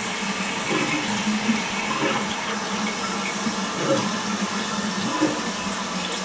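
Toilet flushing: a steady rush of running water from the bowl and tank.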